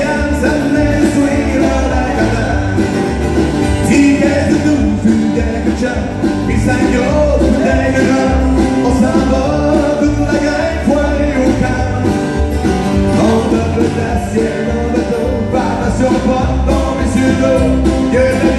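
Live country music: a man singing, backed by strummed acoustic guitars and a fiddle.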